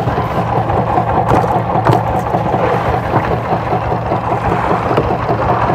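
Fishing boat's engine running steadily with a low, even hum and clatter, with a couple of faint knocks about a second and two seconds in.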